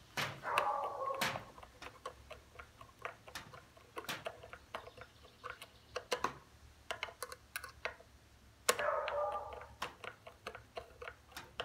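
Hand screwdriver driving a wood screw into a wooden birdhouse board, turned by wrist twists: a run of small irregular clicks and creaks as the screw turns and bites. Two louder, longer grating stretches come near the start and about three-quarters through, as the screw is worked down snug.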